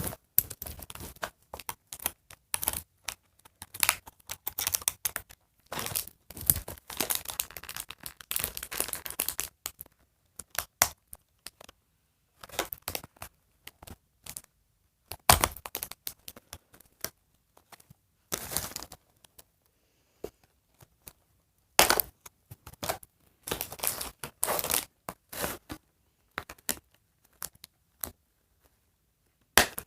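Cardboard and plastic doll packaging being torn and crinkled as a doll is worked loose from its box: irregular short bursts with quiet gaps between.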